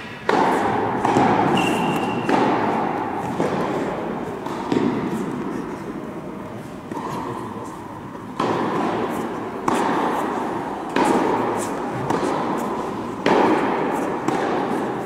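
Tennis rally: about ten sharp racket strokes and ball bounces, roughly one every second or so. Each rings out in a long echo in a large indoor tennis hall.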